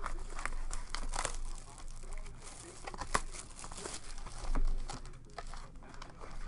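Cellophane shrink wrap crinkling as it is pulled off a Panini Prizm baseball card box, then foil card packs rustling and crackling as they are drawn out of the box, in irregular snaps.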